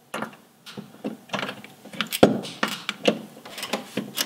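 Metal clicks and knocks as a rear shock absorber is worked onto its mounting bolt, with one sharp knock about two seconds in. Quicker clicking follows as a socket ratchet comes into use near the end.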